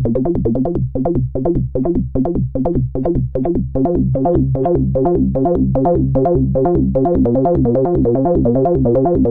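Moog Rogue two-oscillator analogue monosynth playing a sequenced four-note bass pattern from a Korg SQ1 step sequencer, quick repeating notes at about four or five a second. The notes are short and separated at first, then grow longer and run together about four seconds in as the contour generator (envelope) sliders are moved.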